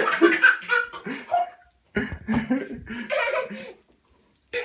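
Toddler laughing hard, in two runs of giggling bursts with a quiet stretch near the end.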